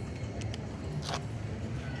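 Low steady rumble of a D19E diesel-electric locomotive's engine, with a couple of faint clicks about half a second in and a sharp knock a little after a second in.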